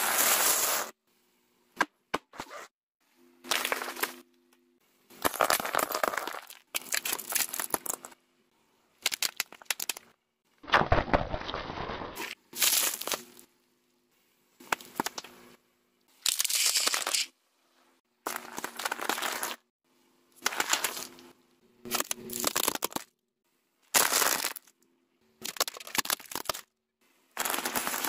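A car tyre rolling over and crushing small objects in a string of short, separate crunching and cracking bursts, each about a second long and cut off into silence before the next. A steady low hum runs under several of the bursts.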